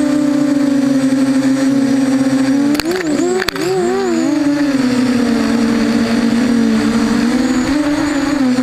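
Brushless motors and propellers of a 250-size FPV mini quadcopter buzzing steadily in flight, with props and one motor bell out of balance. About three seconds in the pitch dips and swoops for a second as the throttle changes, with two sharp clicks.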